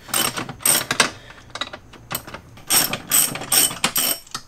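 A hand ratchet clicking through short strokes on the seat-mounting bolts of a van's driver seat. There are two runs of about four quick strokes, one at the start and one from a little before three seconds in, with a pause between.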